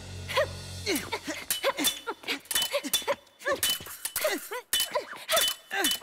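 Fencing blades clashing in a rapid series of metallic clinks, with short grunting cries from the fencers between the strikes.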